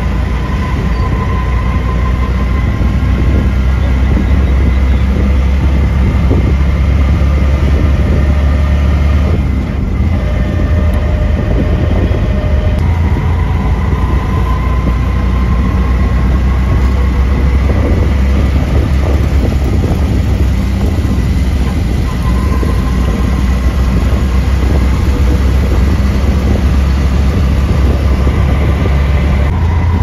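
Loud, steady rumble of road and wind noise heard on board a vehicle moving through city traffic, with a faint high whine that comes and goes a few times.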